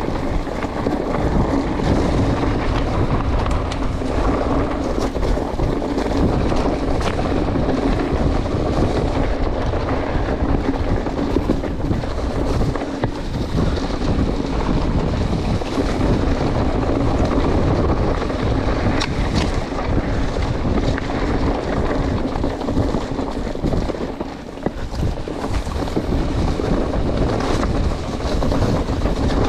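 Wind buffeting the microphone of a mountain bike ride, with tyres rolling over a dirt trail and small knocks and rattles from the bike throughout.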